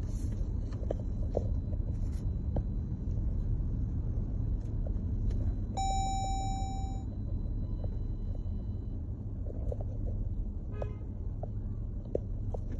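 Steady low rumble of a road vehicle in motion, with a brief pitched tone about six seconds in.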